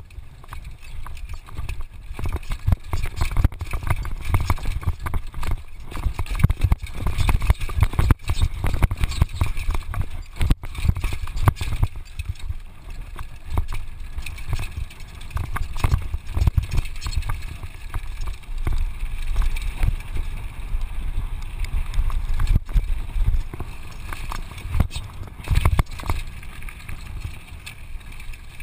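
Downhill mountain bike rattling and knocking at speed over rough dirt and rocky trail, a dense run of short knocks over a heavy low rumble, heard through a GoPro camera's microphone.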